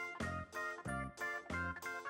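Background instrumental music: a steady run of short pitched notes, about four a second, over low bass notes.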